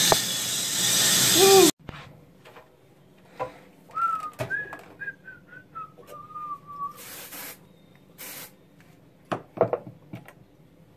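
Shower water spraying, then cut off abruptly under two seconds in. Then a person whistles a short tune of a few notes that step downward, followed by two short hissing bursts and a few light clicks.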